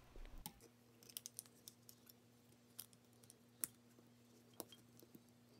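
Faint, scattered light clicks of small metal parts being handled as carbon brushes and springs are fitted into a Hitachi starter motor's brush holder, the sharpest click about three and a half seconds in, over a faint steady low hum.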